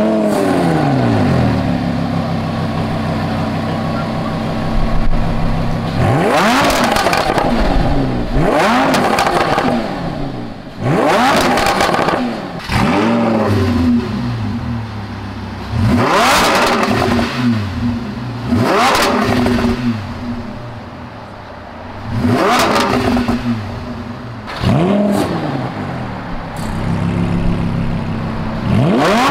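Lamborghini Huracan V10 engines being free-revved in turns with their exhaust valves closed, then open: a note settling to idle, followed by a string of sharp throttle blips a few seconds apart, each rising and falling quickly in pitch, with idle between. The factory sport exhaust and an aftermarket Ryft exhaust are compared; the Ryft is a little louder and higher in tone, the sport exhaust deeper.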